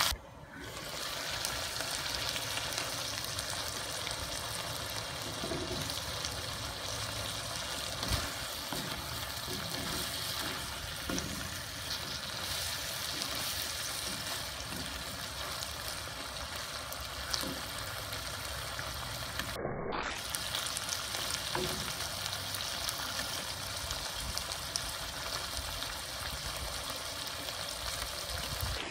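Pork and vegetables (eggplant, squash, long beans, bitter melon) sizzling and simmering in a wok in a little broth, a steady hiss, with a few faint knocks of a wooden spatula.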